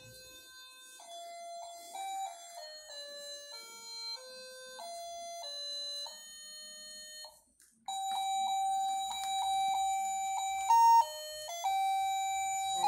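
Battery-powered musical Santa Claus figurine playing a simple electronic Christmas-style tune in clean beeping notes, one note at a time. The tune breaks off about seven seconds in and starts again louder.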